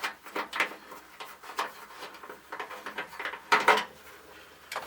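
Scattered light metal clicks and scrapes of a screwdriver removing the retaining screw of an old truck's dash light switch, with a louder pair of clicks about three and a half seconds in.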